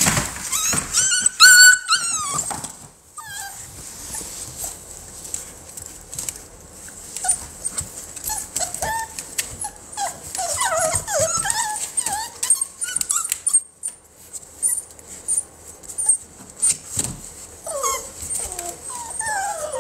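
American Bully puppies whining and yelping in high, squeaky calls. The loudest come in a short run of rising and falling yelps about one to two seconds in, followed by scattered short whimpers through the middle and again near the end.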